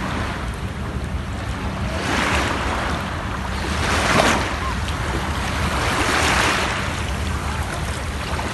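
Small sea waves washing in the shallows, a hiss that swells and fades about every two seconds, with wind rumbling on the microphone.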